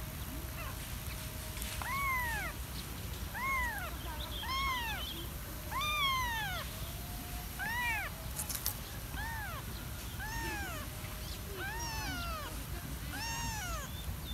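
A young kitten mewing over and over: about ten short, high meows, each rising and falling in pitch, roughly one every second or so.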